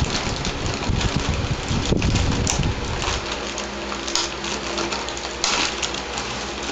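Handling noise from unpacking plastic toy accessories: rustling and crinkling, with a low rumble for the first few seconds and a few light clicks of plastic parts.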